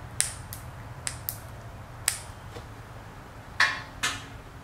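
Small sharp clicks of the leftover line being snipped and handled at a spinning reel's spool, followed by two louder clacks near the end.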